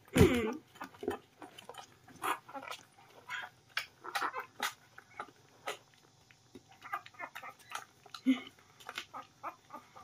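A small puppy suckling noisily at a milk bottle's nipple while being hand-fed: a quick, irregular run of wet smacks and clicks. A brief louder noise comes right at the start.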